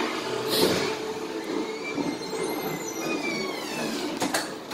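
Steady hum of a ferry's machinery with a high squeal that slides in pitch midway, then a couple of sharp metallic clicks near the end as a deck door latch is worked.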